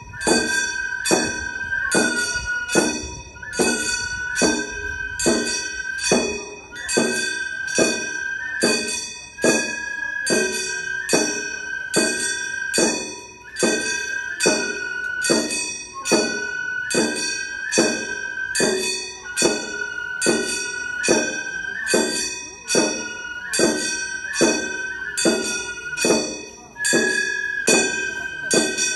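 Gion bayashi festival music played on a float: small bronze kane gongs struck in a steady fast beat under a high transverse bamboo flute melody.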